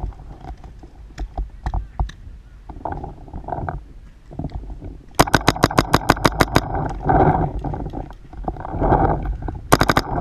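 Paintball marker firing a rapid string of about a dozen sharp shots, roughly eight a second, for a second and a half midway through, then a short burst of three or four more shots near the end.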